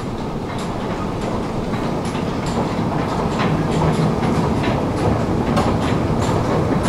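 Subway station escalator running: a steady mechanical rumble with irregular light clicks and clatter from the moving steps, growing a little louder.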